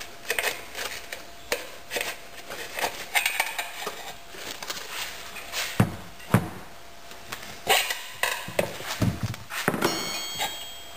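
Screwdrivers levering a stubborn tire bead off a dirt bike's rear wheel rim: irregular metal clinks, scrapes and knocks, with a few louder knocks in the second half and a brief metallic ring near the end.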